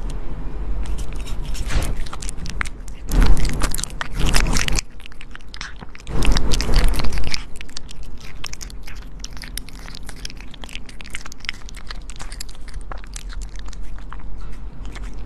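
A pet chewing and crunching food: a steady run of crisp crunches, with two louder spells about three and six seconds in.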